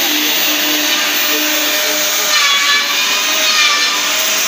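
Metabo KFM 15-10 F bevelling milling machine cutting a chamfer along the edge of a thick metal plate: steady, loud motor and cutter noise, with a higher whine joining about two seconds in.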